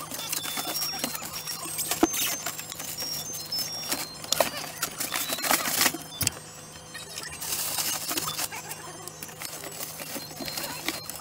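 Plastic ice cream wrappers crinkling and cardboard boxes knocking as hands rummage through a chest freezer, with irregular clicks and bumps throughout.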